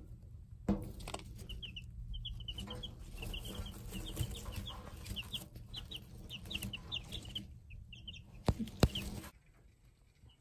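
Cuckoo Marans chicks peeping: a run of short, high peeps, each dropping in pitch, several a second. Near the end come two sharp knocks close together, the loudest sounds here, and then the peeping stops.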